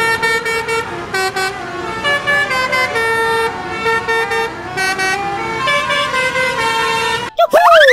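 Tour bus's multi-tone "telolet" musical horn playing a melody: a string of held notes stepping up and down in pitch, cutting off abruptly near the end.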